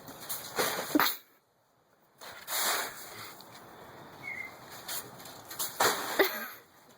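Yellow Labrador bounding and jumping in snow: irregular bursts of scuffling and rustling, with a brief gap of near silence about a second in.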